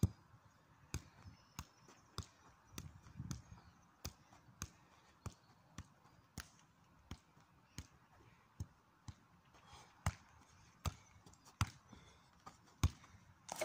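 A football being juggled: a steady run of short, sharp thumps as the ball is struck again and again, about one and a half touches a second, a few of them louder in the second half.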